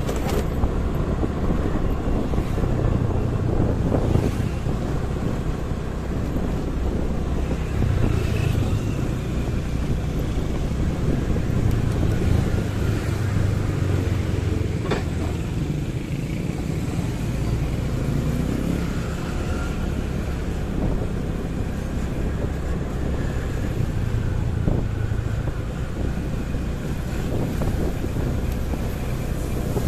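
Motorcycle ride through city traffic: a steady low rumble of engines and road noise, with wind buffeting the microphone.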